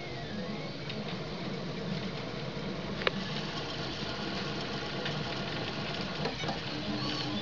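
RepRapPro Mendel 3D printer's stepper motors whirring as the print head moves, their whine rising and falling in pitch as the nozzle traces curves, over a steady low hum. One sharp click about three seconds in.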